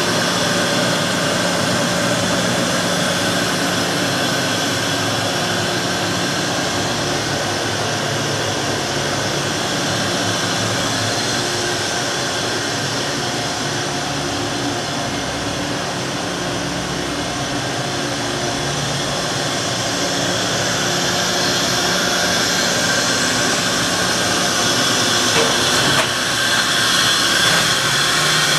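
Matsuura MC-660VG CNC vertical machining center powered up and running: a steady machinery hum and whir with a low tone under it, and a couple of clicks near the end.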